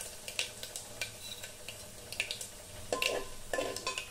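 Mustard seeds, chana dal, urad dal and dried red chillies sizzling in hot oil in a pan for a tempering, with a spoon stirring and scraping against the pan now and then, a few stronger strokes about three seconds in.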